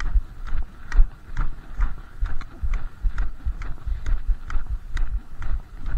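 Nordic walking pole tips striking a packed-snow and icy road in a steady walking rhythm, about two sharp clicks a second, with the low thud of footsteps beneath.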